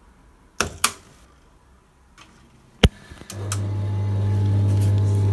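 A few clicks from the washing machine's controls, a sharp click just under three seconds in, then the Hoover A3190 Electron 1100 De Luxe's drain pump starts up with a loud, steady mains hum that holds to the end.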